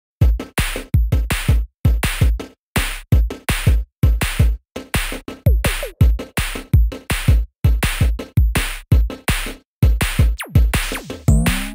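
Electronic background music with a steady, punchy drum-machine beat, and a falling synth sweep about ten seconds in.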